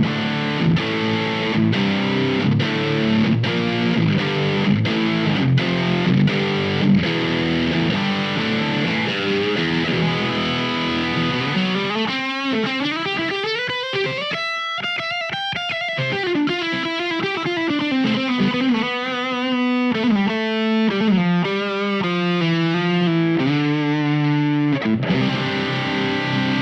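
Electric guitar played through an LPD Pedals Eighty7 amp-in-a-box overdrive pedal, heavily distorted: rhythmic chugging chords, then a bending single-note lead line about halfway in, then chords again near the end.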